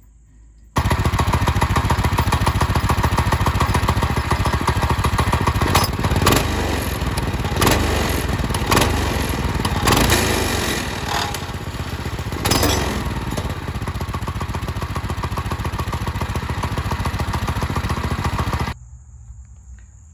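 Predator 212 single-cylinder engine running with the crank bolt of its 30 series torque converter driver loosened, the driver working itself apart on the crankshaft. Several sharp knocks and surges come in the middle. The engine sound starts abruptly about a second in and cuts off shortly before the end.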